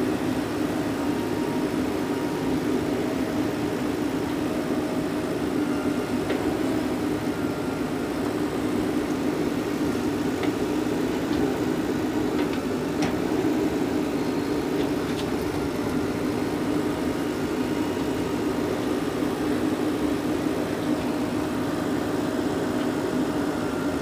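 Diesel engines of a JCB 3DX backhoe loader and a farm tractor running at a steady pitch, a constant drone with a few faint clicks.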